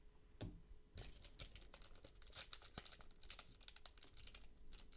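Faint crinkling and tearing of a Playoff football trading-card pack's wrapper as it is torn open by hand, a run of small crackles starting about a second in.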